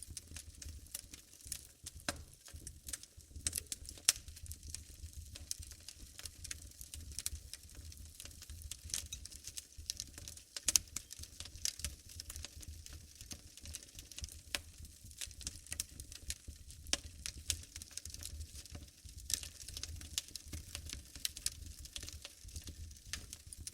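Wood fire in a fireplace crackling, with dense, irregular snaps and pops and a few sharper cracks, about 4 and 11 seconds in, over a low steady rumble.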